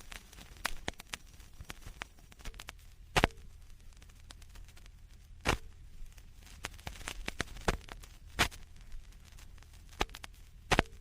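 Vinyl record surface noise: scattered crackles and small clicks over a faint low rumble, with a few louder pops every couple of seconds.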